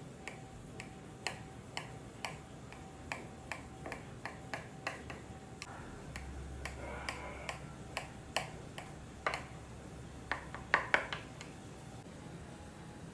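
A series of irregular light clicks, about two or three a second, with the loudest ones in a quick cluster near the end.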